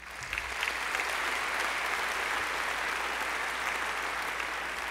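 Audience applauding steadily in a large auditorium after a speech.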